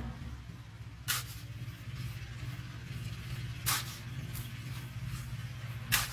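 Hand trowel scooping and scattering dry cement-and-grit mix over a wet cement slab: three short, sharp scrapes and hisses of grit, about two and a half seconds apart, over a low steady hum.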